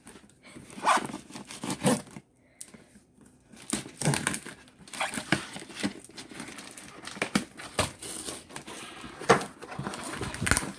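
A cardboard shipping box being opened: packing tape cut with a knife and torn, with cardboard and wrapping rustling and crinkling in irregular bursts.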